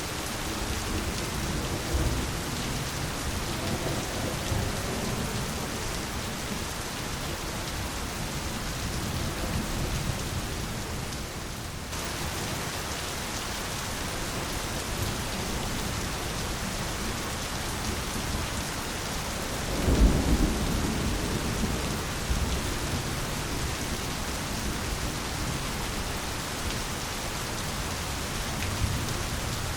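Steady rain falling, with low rolls of thunder. The loudest thunder rumble comes about two-thirds of the way in and fades over a few seconds.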